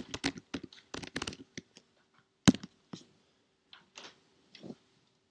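Typing on a computer keyboard: a quick run of keystrokes, then scattered single key presses, one louder strike about two and a half seconds in.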